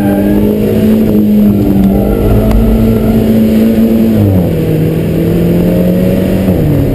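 Alfa Romeo 4C's 1.75-litre turbocharged four-cylinder engine and exhaust running at steady revs. Its pitch drops in two steps, about four seconds in and again near the end.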